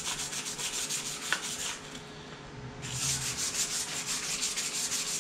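Small abrasive block scrubbed quickly back and forth by hand along the steel side of a chainsaw bar, polishing off surface rust. The strokes come in an even, rhythmic scrubbing, with a short pause about two seconds in.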